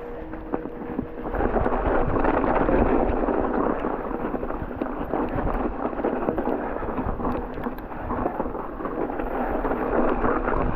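Mountain bike tyres rolling and crunching through snow as the bike is ridden, a dense grainy noise that swells about a second in and then stays steady.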